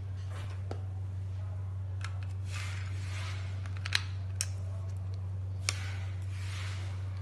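Sharp plastic clicks and handling rustle as two batteries are pressed into an infrared thermometer's handle and its plastic battery cover is fitted, the loudest click about four seconds in. A steady low hum runs underneath.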